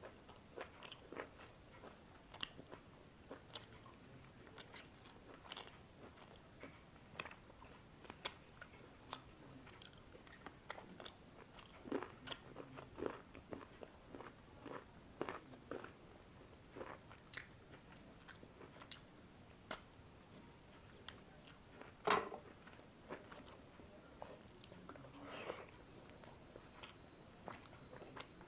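A person chewing a meal close to the microphone, with many short, irregular mouth clicks.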